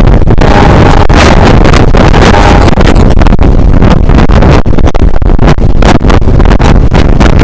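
Heavy wind buffeting on a microphone held outside the window of a moving passenger train, over the steady running noise of the train. It is very loud and rough throughout, with a faint steady tone appearing briefly near the start.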